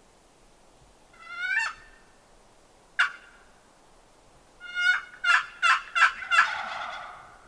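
Merriam's wild turkeys calling. A drawn call comes about a second in and a single sharp note at three seconds. Then a quick run of sharp cutting notes runs into a rattling gobble near the end.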